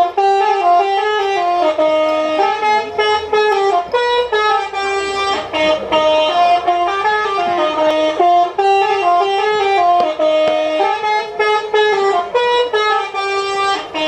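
Basuri telolet-style musical horn playing a sholawat tune: a continuous melody of short stepped notes that repeats its phrase over and over.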